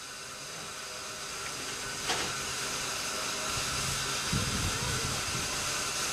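Steam tank locomotive hissing steam at a platform, the hiss growing gradually louder, with one sharp click about two seconds in.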